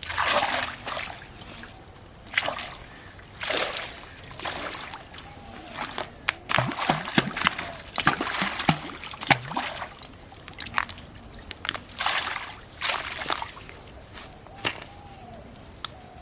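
Water splashing and sloshing in repeated, irregular bursts.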